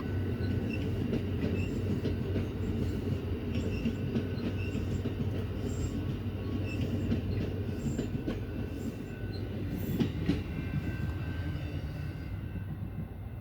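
Amtrak Wolverine passenger train rolling out on departure: a steady rumble of wheels on rail under a low, even hum, with a few clicks about ten seconds in. It grows a little quieter near the end.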